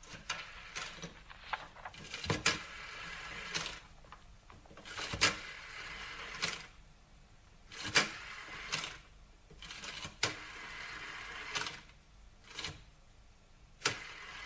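A rotary telephone being dialled. The dial turns and whirrs back several times, each return a second or so long and ending in a click, for one digit after another.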